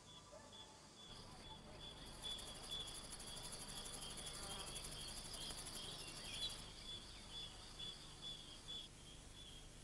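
Faint night ambience of crickets chirping in a steady, regular pulse. A faster, higher insect trill joins about two seconds in and stops just past the middle.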